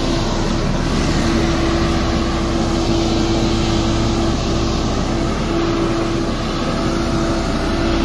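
A Dynapac road roller's diesel engine running steadily: a constant hum over a low rumble, breaking off briefly a couple of times.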